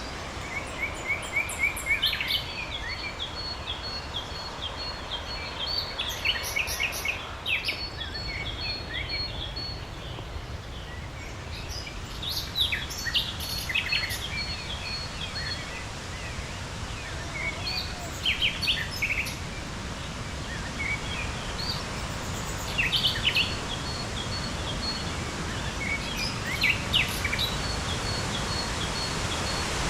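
Songbirds singing in a series of phrases every few seconds, including runs of quick, even, high notes, over a steady rush of noise.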